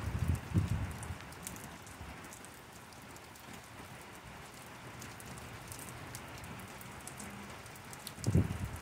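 Steady rain falling in a thunderstorm: an even hiss with scattered sharp drop ticks. Brief low rumbles come in the first second and again near the end.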